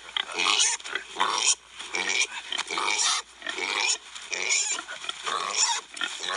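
Kune Kune pigs squealing loudly and repeatedly as they are caught and handled, a string of harsh, high squeals with short breaks between them.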